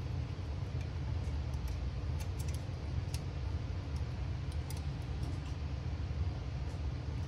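A few light, irregular metallic clicks as a steel pin punch and the small parts of a rifle trigger group are handled and worked into line, over a steady low hum.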